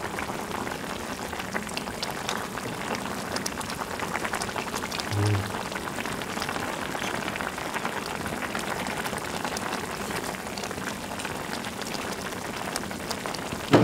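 Food bubbling and sizzling on a burner: a steady, dense crackle of small pops and fizz.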